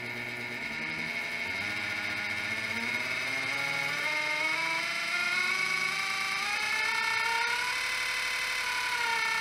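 A 2,000 W 48 V e-bike kit electric motor spins the drive shaft and gearing of an outboard lower unit under throttle, at about 60 to 70% of full throttle. It whines, the pitch rising slowly for about seven seconds and then holding steady, over a constant high tone.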